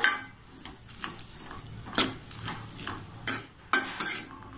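Steel ladle stirring diced cucumber and onion in a metal kadai: irregular scrapes and clinks of the ladle against the pan over a faint sizzle of the simmering mixture.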